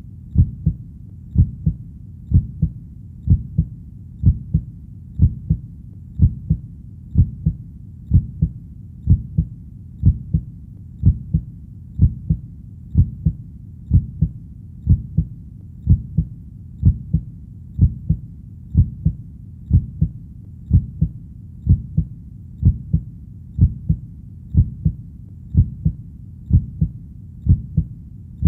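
Heartbeat, a steady lub-dub of paired low thumps at about one beat a second.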